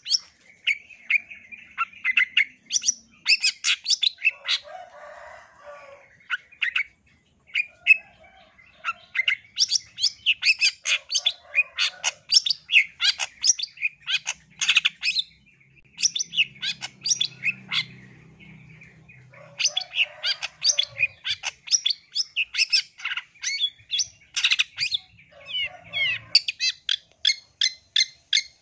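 Long-tailed shrike singing: bursts of rapid, sharp notes broken by short pauses, with a few harsher, scratchy calls in between.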